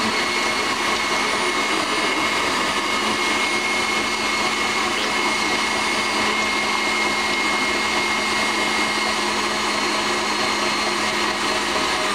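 KitchenAid tilt-head stand mixer running steadily at speed, beating pudding mix as it thickens. The motor gives an even hum with a high whine over it.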